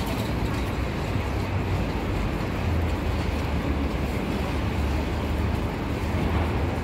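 Steady city street noise: a low, even rumble of traffic with no single standout event.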